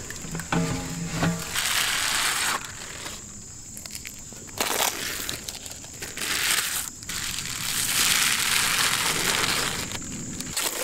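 Foil crinkling and rustling as it is handled and peeled back from a cake tray, in several stretches of a second or two with quieter gaps between.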